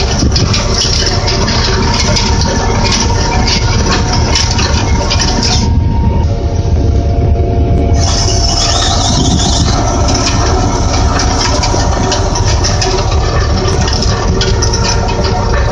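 Skid steer loader's engine running steadily while its auger drive turns the wire winder, with a constant clanking and rattling of woven wire fence being coiled up. The rattle thins out for a couple of seconds near the middle while the engine carries on.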